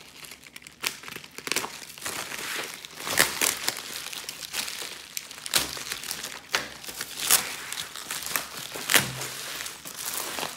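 Bubble wrap crinkling and crackling in irregular sharp crackles as it is cut open, pulled off a small parcel and spread flat.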